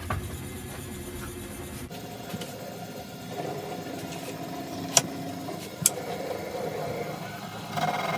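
Wood lathe running with a steady motor hum, and two sharp clicks about five and six seconds in.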